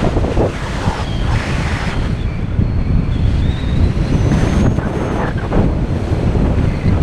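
Wind buffeting the microphone of an action camera on a tandem paraglider in flight, a loud, unsteady low rush of air as the glider banks steeply.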